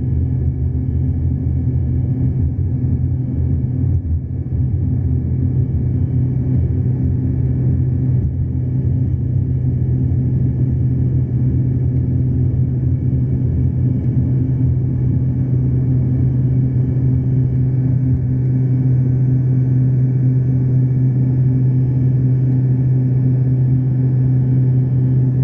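Airliner engines droning steadily: a loud, even low hum of unchanging pitch that grows a little louder about two-thirds of the way through.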